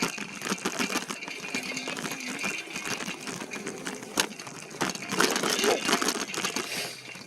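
E-bike rattling as it rides over a rough trail, with a dense, continuous run of clicks, knocks and crackle from the bike and its tyres.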